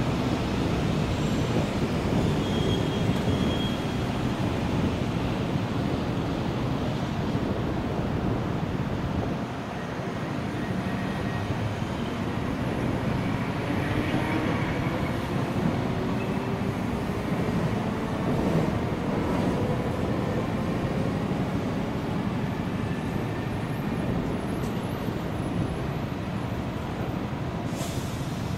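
A Chikuho Electric Railway 3000-series electric tram passes over steady road traffic noise. Through the middle, a low motor whine climbs steadily in pitch.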